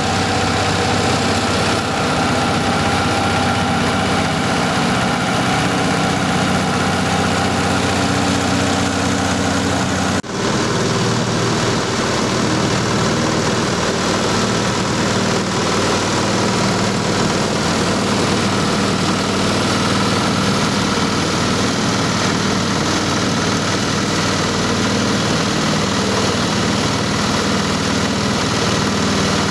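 Small single-cylinder horizontal diesel engine running steadily under load, driving a rice-husk hammer mill that is grinding dry husks into fine bran-like powder. The sound dips briefly and changes slightly about ten seconds in.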